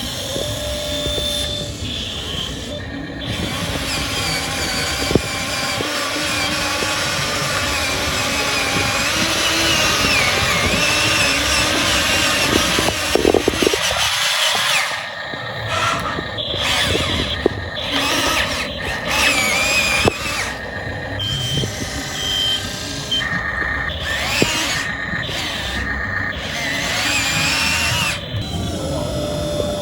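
Radio-controlled Komatsu PC200-8 scale excavator working, its electric motors and hydraulic pump whining and rising and falling in pitch as the arm and bucket move, cutting in and out repeatedly in the second half. A few short beeps sound about twenty seconds in.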